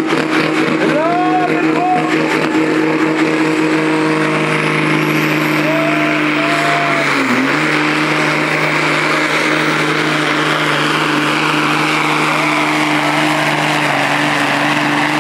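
Tractor-pulling tractor's engine running loud at steady high revs under load, with a brief dip in pitch about seven seconds in.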